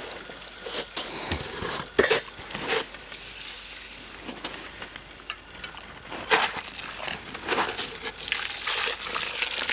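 Boiling water poured from a saucepan over a wooden birdhouse to scald it, splashing and dribbling onto the wood and snow in uneven bursts.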